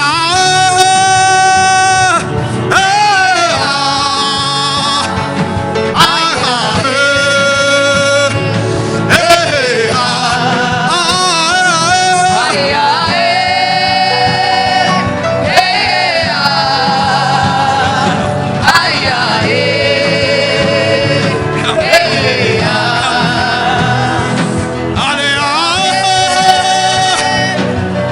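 Gospel worship music: a singer holding long notes with vibrato and gliding wordless runs over a steady instrumental backing.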